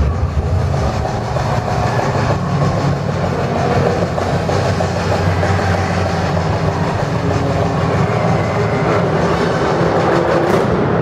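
A loud, steady rumble from a countdown soundtrack played over an arena's PA system.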